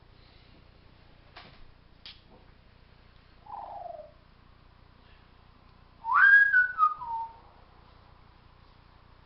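African grey parrot whistling: a couple of faint clicks, then a short falling whistle, and about six seconds in a loud whistle that sweeps sharply up and then steps back down.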